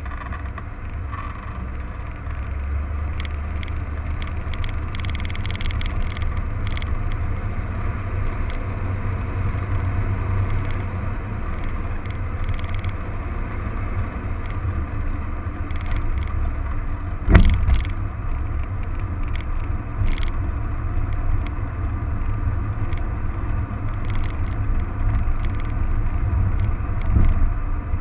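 A car running with a steady, deep rumble, with a sharp thump about seventeen seconds in and lighter knocks later.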